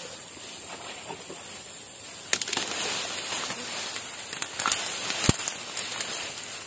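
Rustling and crackling in dry grass and leaves close to the microphone, starting about two seconds in, with scattered clicks and one sharper knock about five seconds in.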